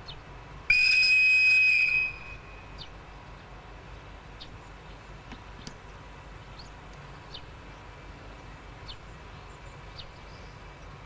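Electric locomotive's whistle blown once: a single loud, steady high note lasting just over a second.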